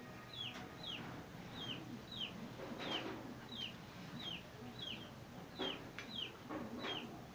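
A chick peeping over and over, each peep a short high note that slides downward, about one or two a second. Soft rustling of fabric being handled comes and goes.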